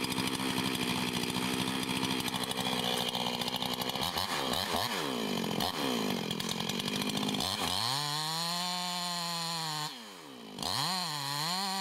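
Chainsaw engine running and being revved. Its pitch swings up and down a few times, then climbs and holds high and steady. Near the end it drops off briefly and picks up again.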